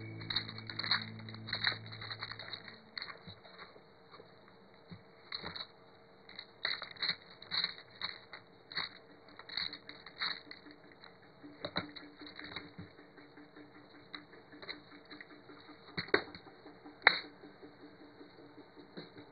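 Small metal screws and bolts clicking and rattling in a plastic parts box as fingers sift through them, in irregular clicks with two sharper clacks near the end.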